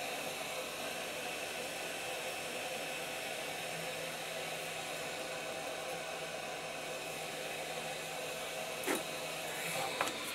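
Hot air rework gun of a YAOGONG 8878D soldering station blowing steadily over a chip being desoldered: an even fan-driven hiss with a faint steady hum. A couple of sharp clicks come near the end.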